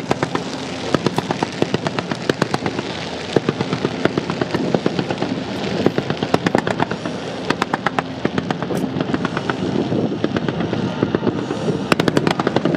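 Fireworks going off in fast strings of sharp bangs, many a second, in several clusters, over a continuous rumbling hiss.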